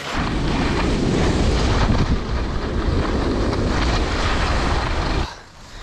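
Wind buffeting a body-worn camera's microphone while skiing downhill, a loud low rumble with skis running over the snow; it stops abruptly about five seconds in.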